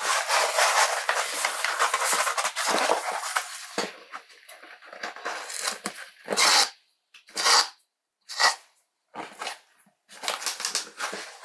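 A kraft cardboard mailer box with crinkle-paper filler being folded shut by hand: about four seconds of continuous rustling and scraping of cardboard and paper, then a run of short separate scrapes and taps as the flaps are tucked and pressed down.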